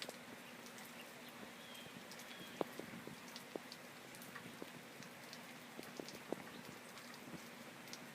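Rain falling steadily, with scattered individual drops striking a hard surface in irregular ticks. One sharper drop lands about two and a half seconds in.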